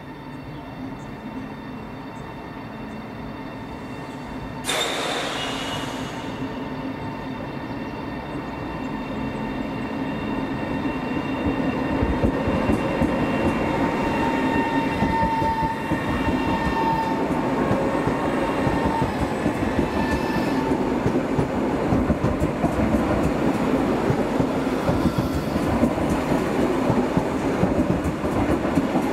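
PKP Intercity Pendolino electric train moving along the platform close by: wheels and running gear rumbling with a few steady high whining tones over it. The level jumps suddenly about five seconds in and keeps growing louder through the first half.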